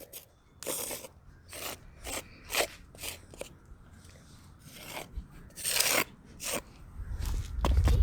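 Wooden shim scraping and smoothing elastomeric crack filler over driveway pavement, a series of short strokes with one longer sweep past the middle. A low rumble comes in near the end.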